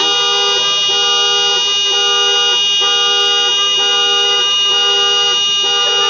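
Several car horns blaring at once in a traffic jam: a chorus of steady tones at different pitches, held almost without a break.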